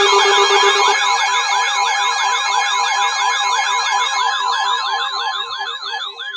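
Layered electronic alert tones: a warbling siren-like tone sweeping up and down several times a second over a steady pitch and a rapid pulsing beep, slowly growing quieter. An alarm announcing an incoming weather warning.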